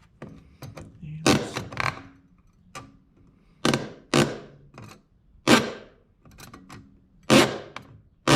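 A hacksaw scoring a starter groove in a small piece of steel plate, in short, irregular strokes, about seven of them, some in quick pairs.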